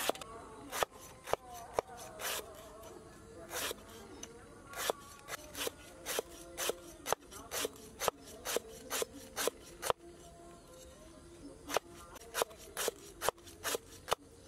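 A knife slicing lemongrass stalks into thin rings on a wooden cutting board: quick, sharp chops in runs, with a short pause about ten seconds in.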